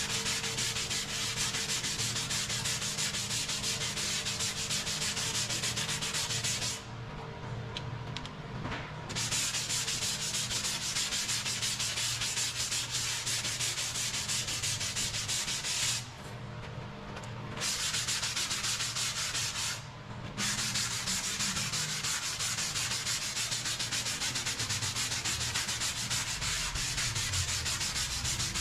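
Sanding body filler (Bondo) on a car body panel: a steady scratchy hiss that stops briefly three times, for about two seconds some seven seconds in, again around sixteen seconds, and once more for a moment near twenty seconds.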